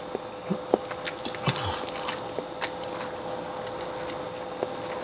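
A person chewing food close to the microphone, with many scattered short mouth clicks, over a faint steady hum.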